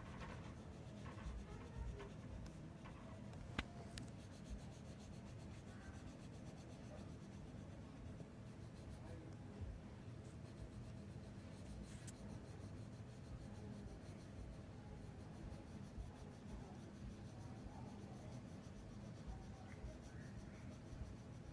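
Faint, steady scratching of a coloured pencil shading on paper, with one sharp click about three and a half seconds in.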